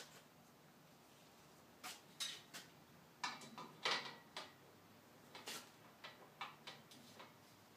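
Scattered light metal clicks and knocks as a roller-skate-bearing carriage plate and clamp are handled and fitted against steel square tubing. The knocks start about two seconds in, the loudest comes near the middle, and a few lighter ones follow.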